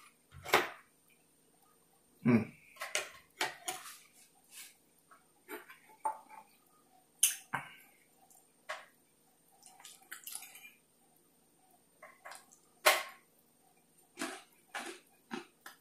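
Close-miked wet chewing and lip smacking of a person eating steak: irregular smacks and clicks, a few of them sharp and loud.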